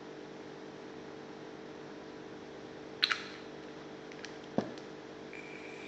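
Small clicks and taps from handling a plastic dropper bottle of e-juice and an e-cigarette while dripping liquid into its drip tip: two sharp clicks about three seconds in and a single tap about a second and a half later. A steady low hum runs underneath.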